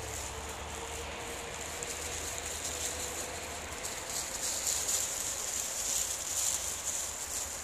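Dry fallen leaves rustling and crackling underfoot, with many small crunches that get busier about halfway through, over a low rumble.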